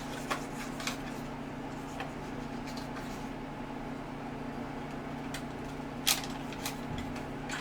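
Packaging being handled during unboxing: a few scattered clicks and knocks, one sharper knock about six seconds in, over a steady low background hum.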